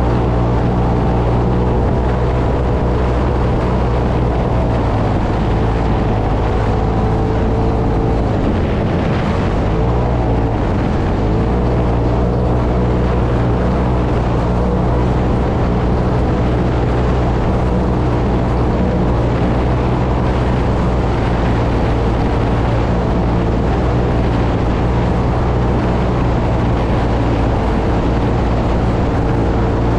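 UTV engine running steadily at speed on a dirt track, its pitch dipping for a couple of seconds about eight seconds in before picking back up.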